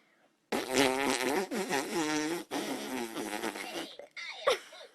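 A long fart with a wavering, bending pitch, starting about half a second in and lasting about three and a half seconds. A brief gliding sound follows near the end.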